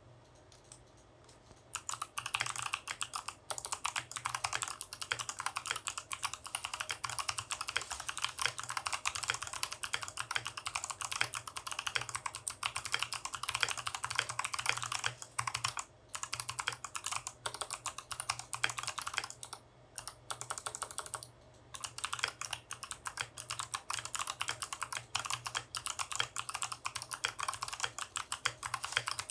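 Leopold 750R PD mechanical keyboard with stock Kailh Box White clicky switches and foam dampening inside, being typed on fast. A dense stream of key clicks starts about two seconds in and runs on with a few brief pauses.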